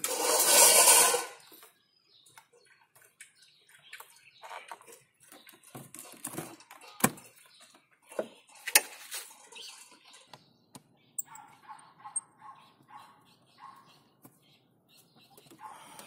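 Hands refitting the air intake hose and air filter housing on a Toyota 4A-FE engine: scattered light clicks and knocks of plastic and rubber parts, with two sharp clicks about seven and nine seconds in. A loud rush of noise lasts about a second and a half at the start.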